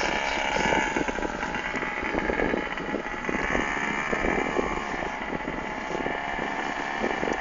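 A quad bike's engine running steadily with a high, even whine.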